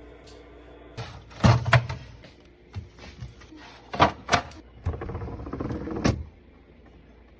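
Items being set into a refrigerator during a restock: a series of sharp knocks and clatters with a rustling stretch between them. It ends in a last knock about six seconds in, then goes quiet.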